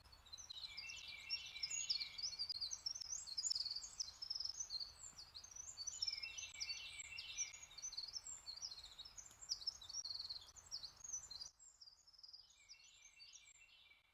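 Birdsong: quick high chirps and trills in several overlapping phrases, thinning out after about eleven seconds.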